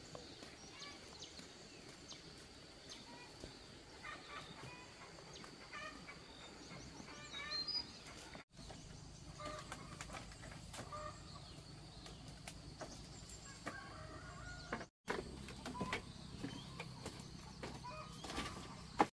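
Chickens clucking faintly, in short scattered calls.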